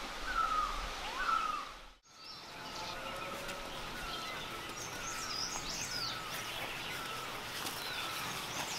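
Forest birds calling: one bird repeats a short falling note over and over, with higher chirps from other birds over it. The sound fades out and back in about two seconds in.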